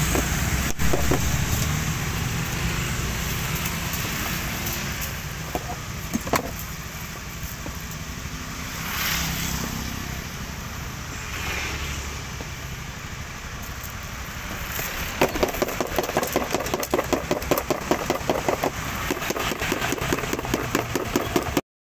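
Street traffic with a motorcycle engine running close by, a steady low rumble that turns into rapid, even firing pulses for the last several seconds. A few sharp clicks near the start come from a knife cutting crystal guava against a plastic container.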